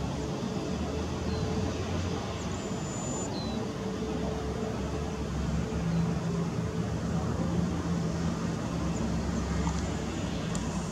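Airbus A320neo's CFM LEAP-1A turbofan engines running at low taxi thrust, a steady rumble with a low hum.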